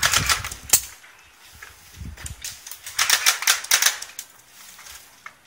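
Airsoft guns firing in rapid strings of sharp cracks. There is a burst at the start, a few single shots, then a longer, denser burst about three seconds in.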